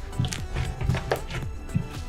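Background music, with a few short knocks mixed in.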